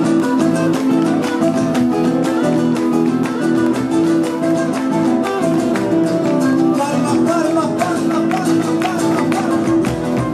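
Live band playing an Argentine folk gato as an instrumental: acoustic guitars strummed in a brisk, steady rhythm with a drum.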